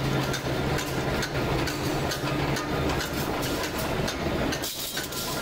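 Metal-press workshop machinery running with a continuous clatter of many short knocks, over a steady low hum that fades after the first second.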